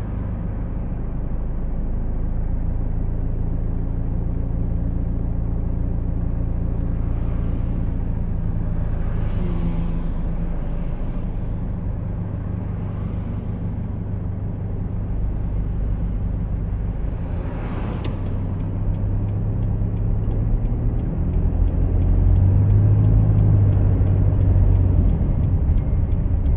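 Car engine and road noise heard from a moving car: a steady low rumble that grows louder in the last few seconds, with one sharp click about two thirds of the way through.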